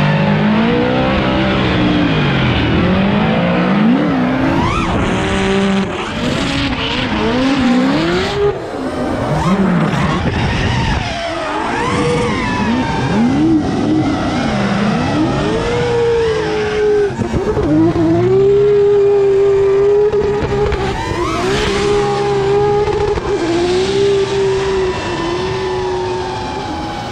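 Drift cars' engines revving hard, pitch sweeping up and down with each throttle stab and shift, over tyres squealing and skidding. From about 16 seconds in, one engine holds a mostly steady high pitch.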